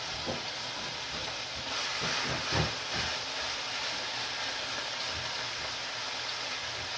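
Steak sizzling steadily in a hot frying pan as it is worked with tongs. The sizzle swells for a moment about two to three seconds in, with a single knock of the tongs against the pan.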